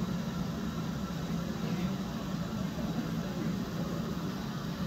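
Steady, continuous rumbling noise of a glassblowing hot shop's gas-fired furnace and glory-hole burners with their blowers running.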